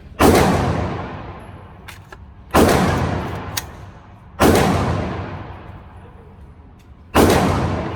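AR-15 rifle fired four times in slow single shots about two seconds apart, each shot trailing off in a long echo.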